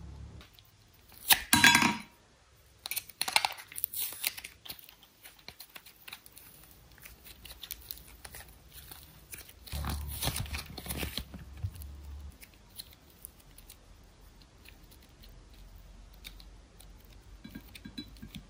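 Hands squeezing and kneading soft slime, with bursts of squishy crackling. The loudest bursts come about a second and a half in, again around three to four seconds in, and at about ten seconds. Quieter scattered clicks fall between them as the slime and a plastic container are handled.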